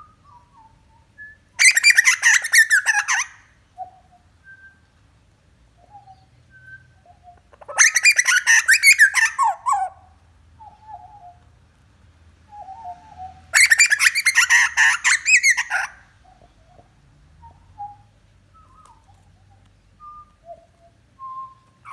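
Young butcherbird calling: three loud, harsh, rapid chortling phrases of about two seconds each, spaced about six seconds apart, with soft short whistled notes in between.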